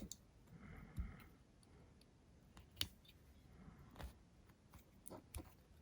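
Near silence broken by scattered faint clicks and taps, about one a second, from small parts and hand tools being handled.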